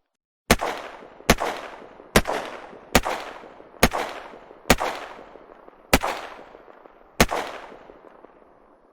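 Eight single gunshots fired at an uneven pace, roughly one a second, each sharp crack followed by a long echoing tail.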